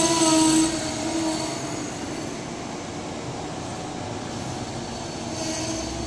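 Amtrak Amfleet passenger cars rolling slowly past as the train slows into the station. A steady high metallic squeal from the running gear drops away sharply under a second in, leaving the even rumble of the passing cars, and the squeal returns faintly near the end.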